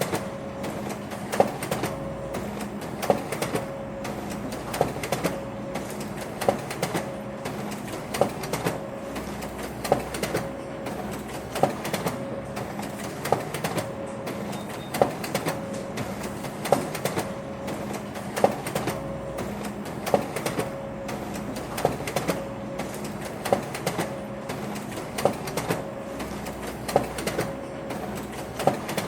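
Office printer running continuously: a steady mechanical hum with a sharp clack repeating evenly about every second and a half to two seconds.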